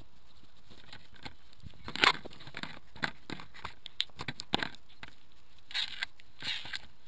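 Fox cub nosing and mouthing at a trail camera right against its microphone: irregular sharp clicks and scrapes on the camera housing, the loudest about two seconds in, with a few longer rustling scrapes near the end.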